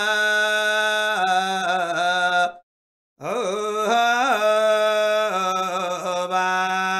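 Samaveda chant (Sama Gana) sung by a single voice in long held notes. It breaks off for about half a second a little over two seconds in, then comes back in with a quick rising and falling waver before settling into steady held notes.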